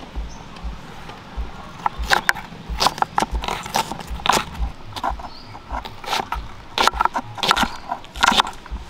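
Large steel kitchen knife chopping red onion on a wooden cutting board: an irregular series of crisp chops, each a crunch through the onion layers and a knock of the blade on the wood.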